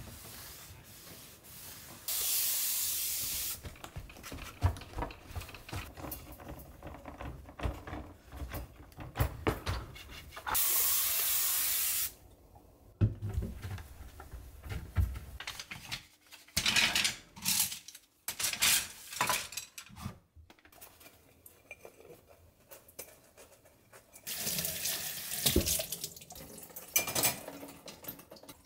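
Hand cleaning with a cloth: rubbing and wiping on tile and cabinet surfaces, with scattered light knocks from handling. Three bursts of steady hiss, each about a second and a half long, come about two, ten and twenty-four seconds in.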